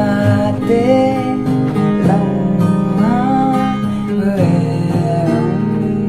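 A man singing a slow Hindi song over strummed acoustic guitar, his voice sliding between held notes.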